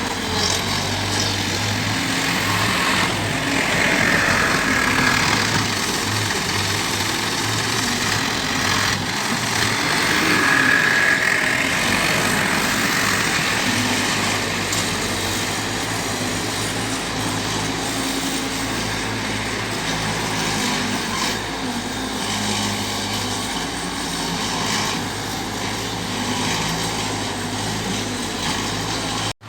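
Skid steer loader's diesel engine running steadily under working load, with a higher whine that rises and falls twice in the first half.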